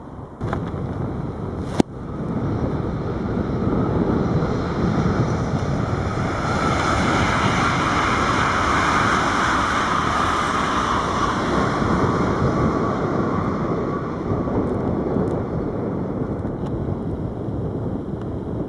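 A train passing close by: a rushing rumble of wheels on rail that swells to a peak midway and then eases off, with one sharp click about two seconds in.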